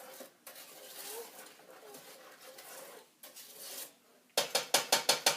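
Faint stirring in a saucepan, then near the end about a second of rapid, loud clinks and knocks of a utensil against the metal pan.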